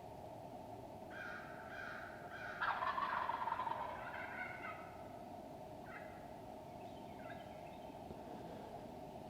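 Wild turkey gobblers gobbling from the roost: a run of overlapping rattling gobbles starting about a second in and loudest around three seconds in, then two shorter, fainter gobbles later, over a steady background hiss.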